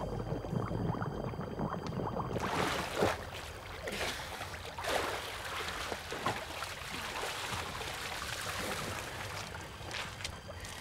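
Water splashing and sloshing as a person swims through a lake, with irregular louder splashes.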